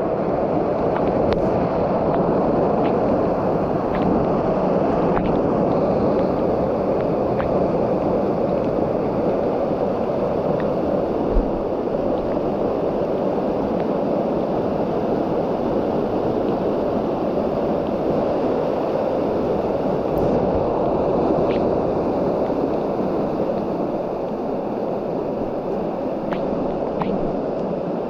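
Mountain stream water pouring over a rock ledge in a small waterfall, heard close up as a steady, dense rush.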